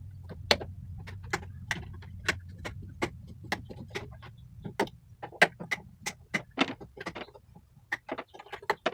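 A run of sharp metallic clicks and taps from hand cutters and metal parts being worked on, about three a second at first, then quicker and more irregular after about five seconds. A faint low hum runs under the first half.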